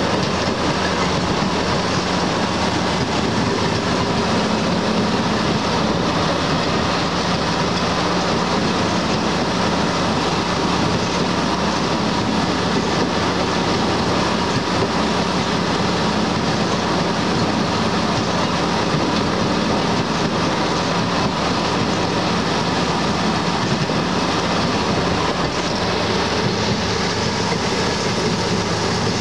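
Steady rolling noise of a passenger railroad car moving along the track, heard from aboard the train, with no distinct rail clicks.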